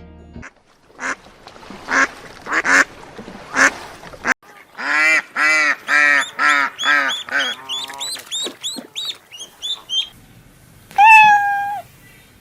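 An animal calling over and over: a few short, harsh calls, then a quick run of about three calls a second, a series of higher-pitched calls, and one longer call near the end.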